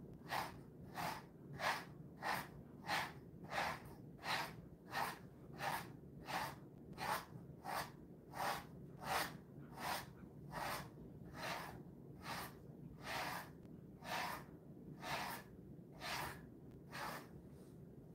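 Jindo dog panting at an even pace, about one and a half breathy puffs a second.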